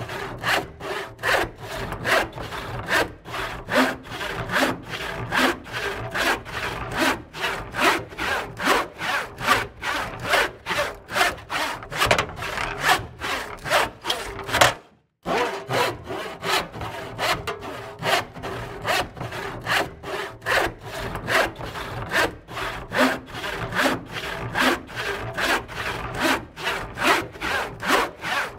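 Handsaw cutting through wood in quick back-and-forth strokes, about two to three a second, with a brief break about halfway.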